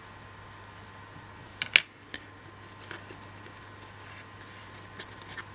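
Light clicks and taps of thin laser-cut MDF pieces being handled and fitted together, with one sharp click a little under two seconds in and a few fainter ones later, over a steady low hum.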